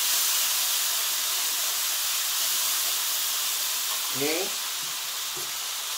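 Chili paste frying in hot oil in a wok, a steady sizzling hiss.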